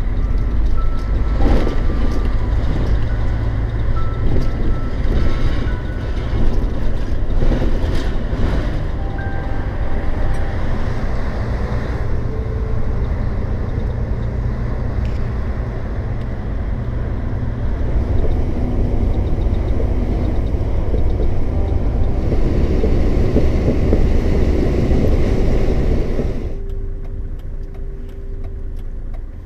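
In-cab engine and road noise of a DAF XF95 truck's straight-six diesel driving through town, a steady low rumble. Near the end the sound drops quieter and a steady hum comes in.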